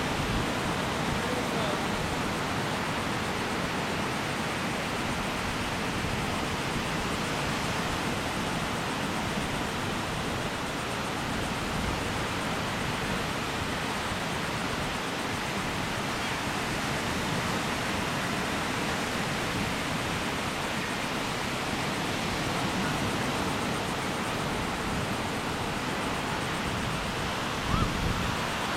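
Ocean surf breaking on the beach, with wind on the microphone, as a steady, even wash of noise. A brief bump comes near the end.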